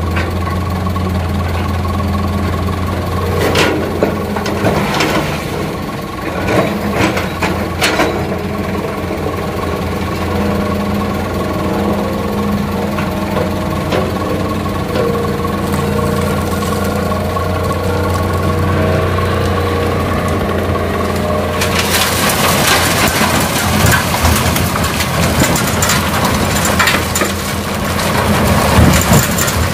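Heavy diesel machinery at a sand-loading site (excavator and dump truck) running steadily, with a few sharp knocks early on. About two-thirds of the way through, a loud rushing noise joins the engine and lasts to the end.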